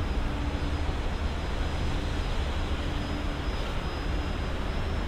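Steady rumble of busy multi-lane road traffic, cars and trucks passing, with a low hum that comes and goes.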